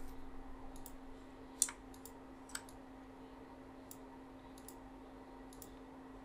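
Computer mouse clicking: about ten scattered single clicks, the loudest about a second and a half in, over a faint steady hum.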